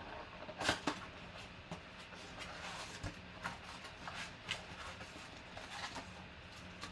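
Cardboard flap of a Panini Mosaic Basketball card box being opened and the plastic-wrapped pack inside crinkled and pulled out, with cards sliding free: a run of crackly rustles and clicks, the sharpest snap under a second in.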